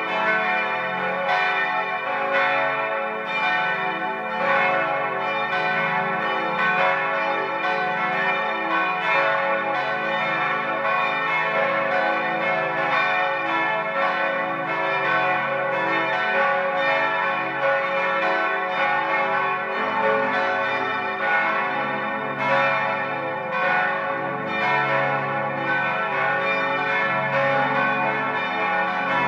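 Five church bells of a monastery tower, tuned a°–cis'–e'–fis'–a', ringing together in a full peal, their strokes overlapping in a continuous, ringing wash. A deeper hum fills in about twenty seconds in.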